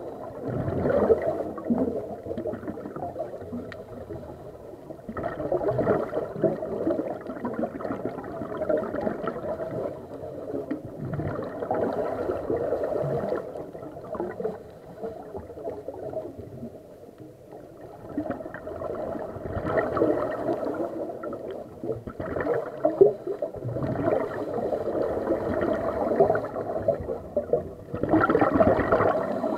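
Scuba divers breathing underwater: bubbling gurgles from regulator exhalations swell up every few seconds over a steady underwater murmur.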